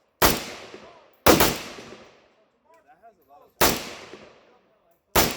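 Rifle shots from an MD65 underfolder, a Romanian AK-pattern rifle in 7.62×39, fired one at a time: five reports, the second and third a quick pair about a second in, each trailing off in a short echo.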